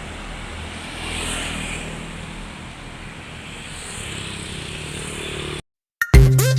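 Roadside traffic noise, with a vehicle passing about a second in. Near the end the sound cuts out abruptly, and music with a heavy beat starts.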